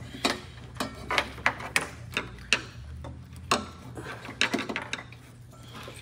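Irregular clicks and light knocks of a hand tool and plastic wiring-harness connectors being worked loose and disconnected, with a low steady hum underneath.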